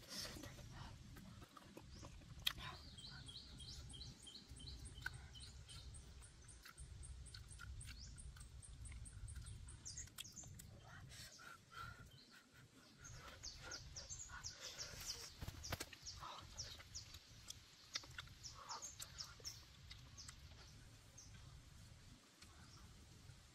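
Faint birdsong: quick runs of short, high chirps, several a second, coming and going over a low steady background rumble.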